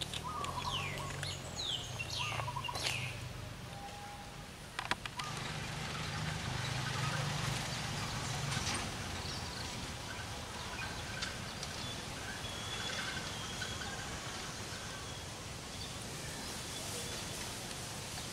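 Birds calling: a run of short falling chirps in the first few seconds, then fainter scattered calls over a steady outdoor hiss, with a few sharp clicks about five seconds in.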